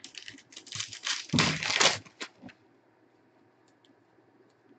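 Foil trading-card pack wrapper crinkling and tearing as it is opened, a run of rustles over the first two seconds or so, loudest about a second and a half in.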